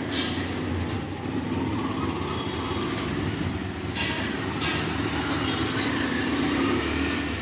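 Steady low engine-like rumble in the background, with a few faint brief rustles.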